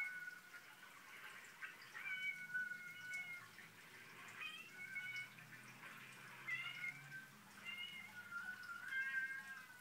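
Recorded cats meowing, played from a laptop speaker: about six drawn-out meows in a row, some held for a second or more with a wavering pitch.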